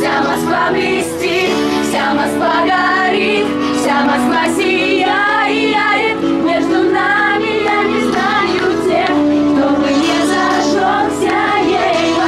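Pop music playing with a female vocal singing over sustained instrumental backing.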